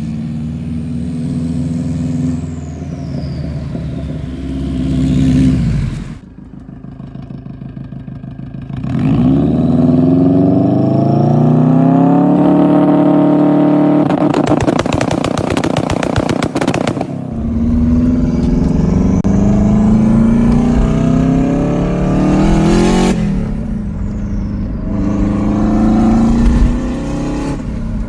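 Turbocharged Subaru WRX flat-four with a big 20G turbo, revved and accelerating hard; the engine note climbs and falls with the revs. Partway through comes a rapid string of sharp pops, and a high turbo whistle falls away in pitch as the throttle is lifted.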